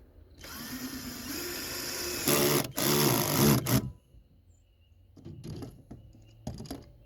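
Power drill driving the mounting-bracket screws into an electrical box: the motor whines up about half a second in, runs steadily, then grows louder for about a second and a half as the screws are torqued down, and stops. A few light clicks follow.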